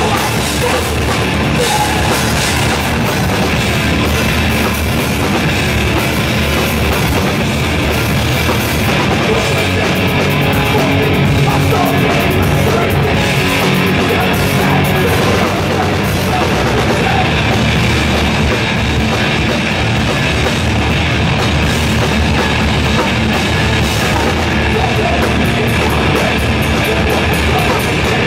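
Hardcore band playing live and loud: distorted electric guitars over a pounding drum kit, one dense continuous wall of sound.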